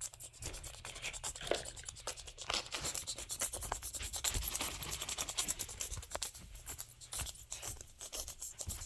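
Toys and props being handled and moved by hand: a dense run of small scratching, rubbing and clicking handling noises.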